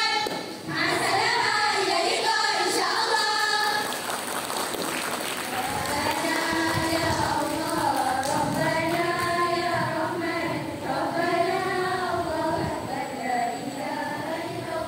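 A group of schoolgirls singing and chanting in unison, as an Arabic choral speaking piece. The voices break off about four seconds in, leaving a brief patch of noise, then the group sings again in unison with long held notes.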